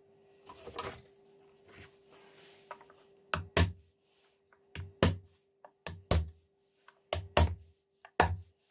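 Small hammer tapping on a wooden clock board, sharp knocks coming mostly in pairs about a second apart, starting about a third of the way in.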